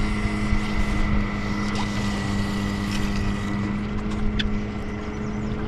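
A boat motor running steadily at a constant speed, a low hum with a thin high whine over it.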